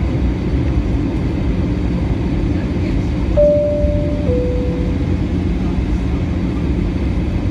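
Steady engine and airflow noise inside an Airbus A320 passenger cabin. About three seconds in, a two-note cabin chime sounds, high then low.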